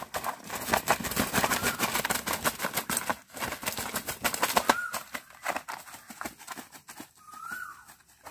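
A freshly slaughtered chicken flapping and thrashing in its death throes, a rapid flurry of wing beats and rustling against a banana leaf and grass that thins out after about five seconds.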